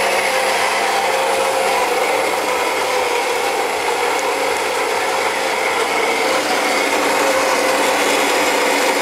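Gaggia Magenta Milk bean-to-cup espresso machine's built-in burr grinder grinding beans for an espresso shot. It makes a loud, steady grinding noise at an even level.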